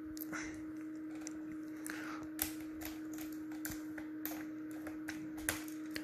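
Small irregular clicks and ticks of a precision screwdriver turning screws out of a laptop's plastic bottom cover, with a steady faint hum underneath.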